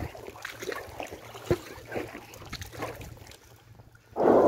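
Inflatable kayak being paddled in, with small splashes and light knocks. Near the end its hull runs up onto the sandy landing with a sudden loud scraping rush that lasts about a second and a half.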